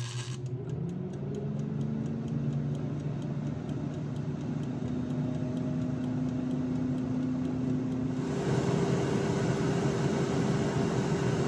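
Paula Deen 9.5-quart air fryer starting up: its fan motor spins up with a rising hum, then settles into a steady whir of circulating air, with faint fast ticking, about four a second. About eight seconds in, the air noise grows louder and the hum moves to a higher note. It is not super loud.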